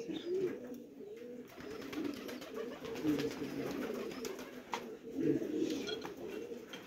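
Pigeons cooing, low soft coos overlapping one after another throughout.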